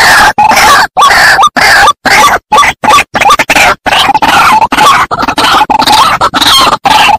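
White-breasted waterhen (ruak-ruak) calling: loud, harsh, croaking calls repeated in quick succession, broken by short, abrupt silent gaps about twice a second. A recorded lure call for trapping waterhens.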